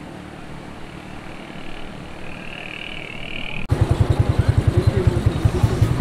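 Steady rush of water pouring through canal sluice gates. About two-thirds of the way through it cuts off abruptly and gives way to a louder, rapid low throbbing at about nine beats a second.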